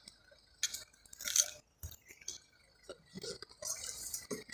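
Irregular rustling and crunching from rescue workers handling a wrapped body and a blanket on stony ground, with the loudest burst about a second and a half in.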